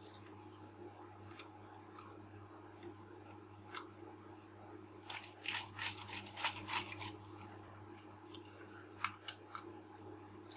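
Small clicks and scrapes of lens parts and small tools being handled during reassembly of a Micro-Nikkor 55mm lens, a few scattered ticks with a dense run of clicking about five to seven seconds in, over a faint low hum.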